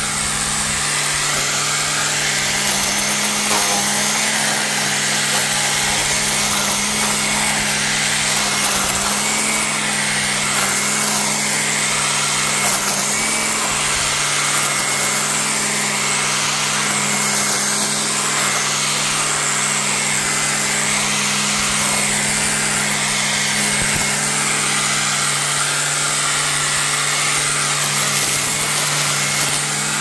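Milwaukee QUIK-LOK cordless string trimmer running at speed, its spinning head cutting through weeds and grass: a steady electric hum that wavers slightly as the head meets the growth, under a constant whirring hiss.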